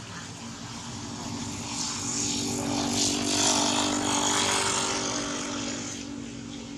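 Motor vehicle passing by on a road: a steady engine hum and road noise that grows louder to a peak midway, then fades.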